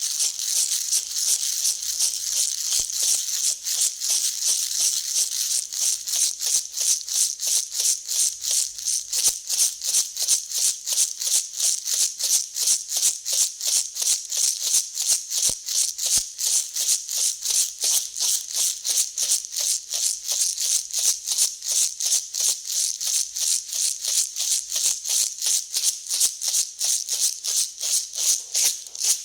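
Dry grains being mixed, swishing and rattling in quick even strokes at about three a second, like a shaken maraca; the strokes settle into a regular rhythm after the first few seconds.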